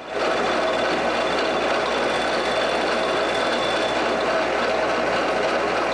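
Milling machine running, its cutter machining the broken end of a lathe tool rest flat and smooth, with a steady, even cutting noise.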